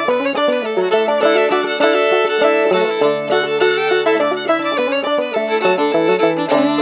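Old-time string band music: a fiddle carrying a lively tune over plucked clawhammer banjo accompaniment, playing without a break.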